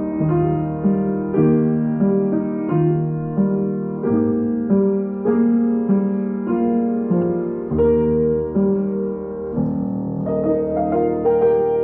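Solo piano music: notes struck about every half second, ringing on over held lower chords, with no voice.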